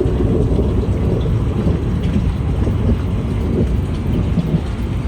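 Thunderstorm: heavy rain and wind making a steady, dense rushing noise that is heaviest in the low end, with no sharp thunderclap.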